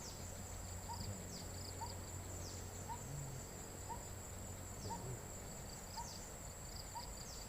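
Insects trilling steadily at a high pitch, with a high chirp that sweeps downward about once a second and a short, faint call repeating at about the same pace.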